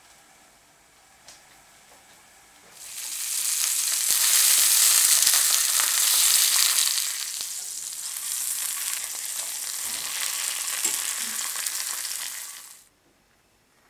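Raw pork sausages frying in hot oil in a pan: after a quiet start, a loud hissing sizzle sets in about three seconds in, eases a little after about seven seconds, and cuts off suddenly near the end.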